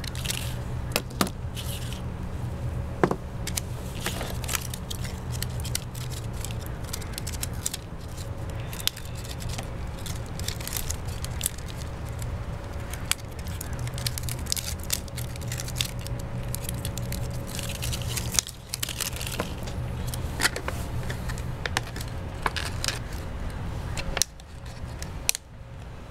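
Scissors snipping and thin clear PET plastic crinkling and clicking as it is cut and handled, with duct tape being cut near the start. Irregular small clicks and scrapes over a steady low hum.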